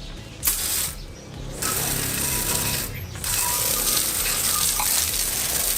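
Paint spraying onto a motorcycle chassis: a short hiss about half a second in, then a long steady spray hiss from about a second and a half in, broken briefly near the middle.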